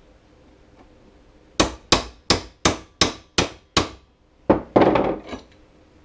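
Hammer striking a small steel punch seven times in quick succession, about three blows a second, driving a roll pin out of an Arctic Cat roller secondary clutch. A short burst of metal clatter follows about a second later.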